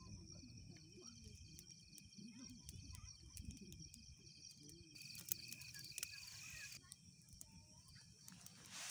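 Faint night insects chirping in steady, pulsing trills, with small crackles from a dry-grass and twig campfire catching. A brief hiss rises about five seconds in and fades a couple of seconds later.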